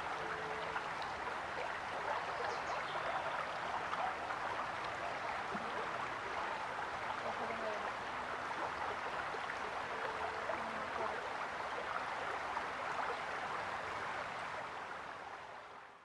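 Steady rushing ambience of running water, fading in at the start and out near the end, with a few faint brief tones over it.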